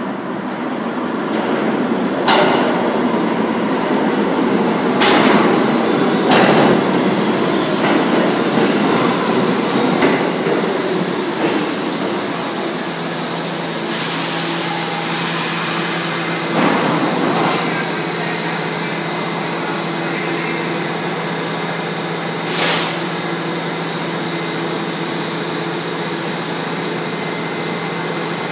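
R68 subway train pulling into the station: wheels rumbling and knocking over the rail, with a thin high squeal as it slows. About halfway through it comes to a stop and stands with a steady low hum, broken by a few sharp knocks.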